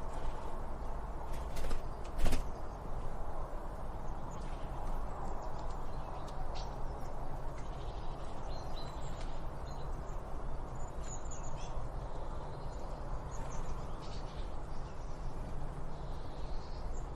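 Small birds chirping and calling in short, scattered phrases over a steady outdoor background hiss, with a single sharp click a little over two seconds in.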